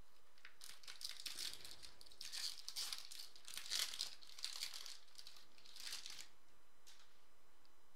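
A Topps Chrome trading-card pack's foil wrapper being torn open and crinkled by hand, in a run of crackly bursts lasting about five seconds.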